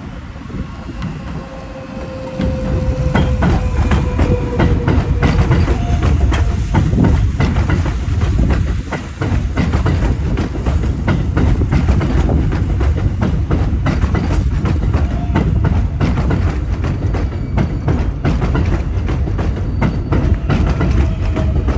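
New York City Subway 4 train running on the tracks, its wheels clicking over rail joints, with a faint slowly falling whine; it grows loud about two seconds in.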